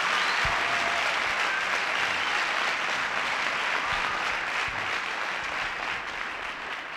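Auditorium audience applauding, the clapping dying down gradually near the end.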